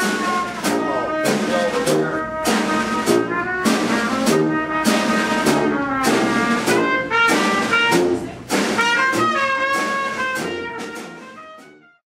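Band music with a steady beat, fading out near the end.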